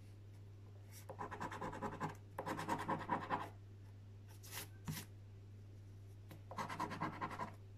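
A coin scratching the scratch-off coating from a paper scratchcard in three short bouts of rapid back-and-forth strokes, with a couple of light clicks between them.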